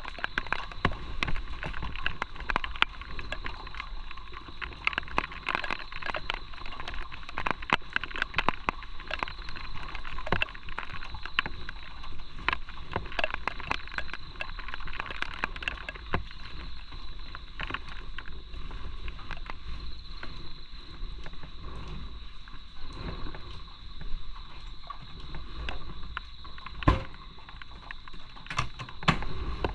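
Motorcycle on the move: a steady low rumble and wind noise on the camera microphone, with frequent irregular crackling clicks.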